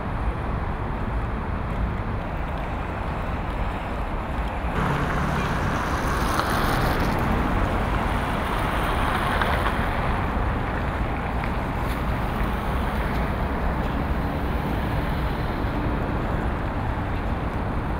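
City traffic noise: a steady rumble and hum of passing cars and trucks, which steps up abruptly about five seconds in.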